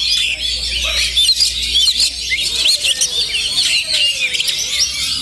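Many caged oriental magpie-robins singing at once: a dense, unbroken chorus of quick, overlapping chirps and whistles.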